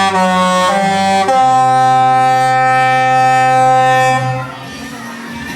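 Music: a few long, steady held notes stepping in pitch, the last held for about three seconds before it stops, leaving a quieter background.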